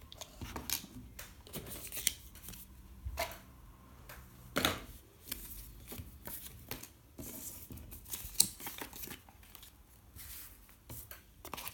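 Paper leaflets and a small plastic card case being handled and set down on a wooden table: scattered short rustles and clicks, the sharpest a click about eight seconds in.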